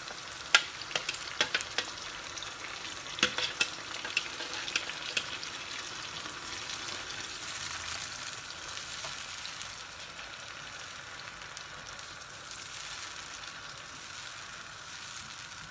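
Sauce frying in a pan with onions and bell peppers: a steady sizzle, with sharp clicks and knocks of a utensil against the pan during the first five seconds or so as it is stirred.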